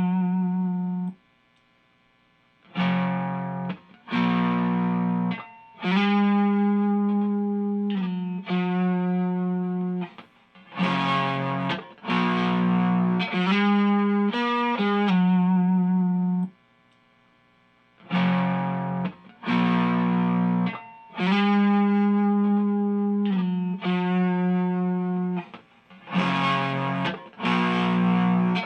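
An electric guitar on its neck single-coil pickup, played through a Xotic Effects SL Drive overdrive pedal into an Orange Micro Dark amp. It plays a distorted riff of ringing chords and notes. The playing stops twice for a moment of silence and the riff starts again.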